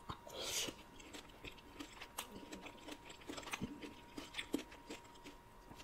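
Close-miked chewing of a mouthful of dragon fruit, with small wet mouth clicks and smacks scattered throughout.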